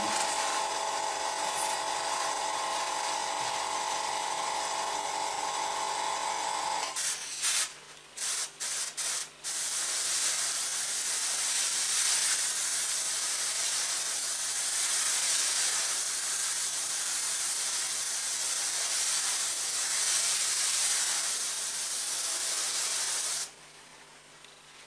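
Airbrush spraying: a steady hum under the air hiss for about seven seconds, then a few short bursts as the trigger is pulled and released, then a long steady hiss of air and paint that cuts off suddenly near the end.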